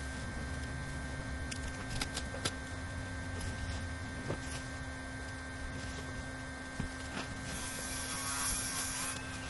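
Steady low hum with a thin constant high tone, scattered light knocks, and near the end a hissing rustle of under two seconds from roofing membrane sheeting being handled.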